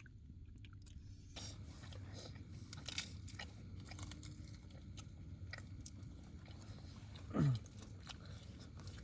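Close-up crunching and chewing of crispy fried soya momos, a run of small irregular crunchy bites.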